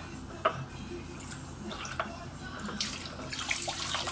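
Water running from a tap and splashing onto a small plastic part being rinsed under it, the hiss growing louder in the last second or so, with a few light clicks of handling.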